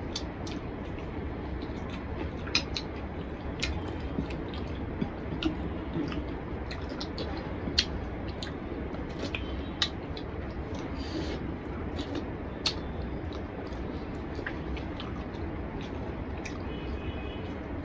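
Eating by hand: irregular sharp clicks and wet smacks of chewing, with fingers squishing rice through a thin spinach curry on a plate, over a steady low hum.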